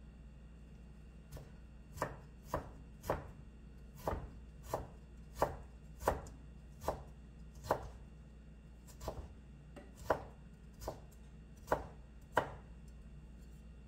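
Chef's knife chopping on a wooden cutting board, mincing food in about sixteen slow, separate chops, roughly one every half second to a second. The chopping starts about a second in and stops near the end.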